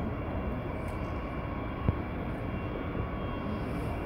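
The Antonov An-225's six turbofan engines are heard steadily from a distance as the aircraft taxis: a rumble with a faint steady whine over it. A single brief click comes about two seconds in.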